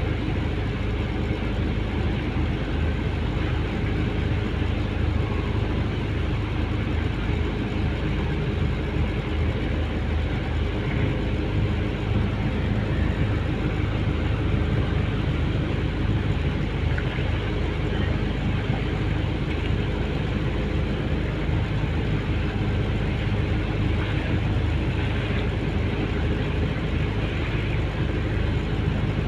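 Skipjack tuna fishing boat's engine running steadily as the boat gets under way, heard from on board as an even low-pitched drone.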